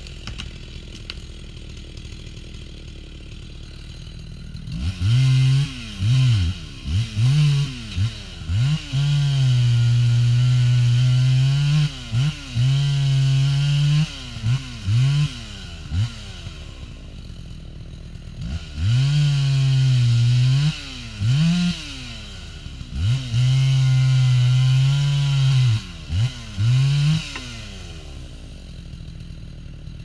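Chainsaw idling, then revved up again and again: quick throttle blips between long stretches at full throttle of a few seconds each, the pitch sagging slightly under the load of cutting through a log. It drops back to idle about halfway through and again near the end.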